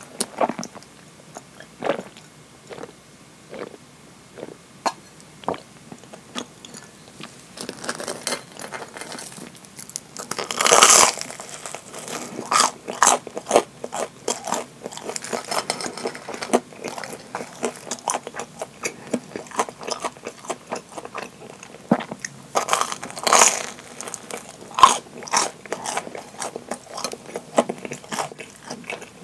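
Chewing and biting of deep-fried curry bread (karē pan): many small crackles and clicks of chewing, and two longer, louder crunches of biting into the crisp breadcrumb crust, about a third of the way in and again about three quarters through, the first the louder.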